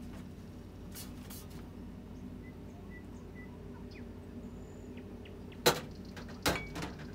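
Two sharp knocks about a second apart near the end as crockery, a porcelain jug and a bowl, is set down on a metal worktop beside a gas stove, over a steady low hum.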